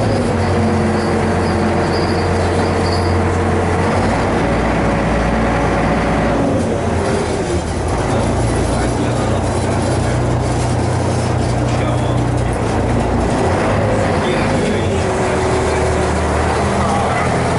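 A heavy engine running under a steady noise, its pitch dropping a few times and rising again near the end.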